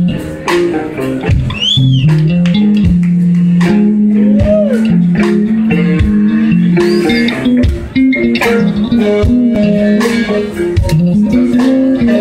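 Live electric blues band playing an instrumental passage: a walking bass guitar line carries the tune over steady drums, with electric guitar and a few bent, sliding high notes on top.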